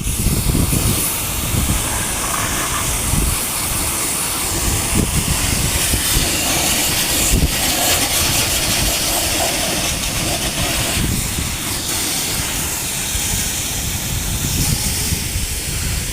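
Steady loud rushing hiss with irregular low rumbling buffets, typical of wind blowing across the microphone.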